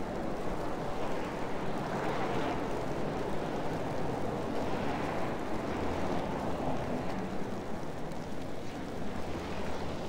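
Steady city street noise in falling snow: a continuous rush of traffic on a slushy road, with a few soft swells as vehicles pass.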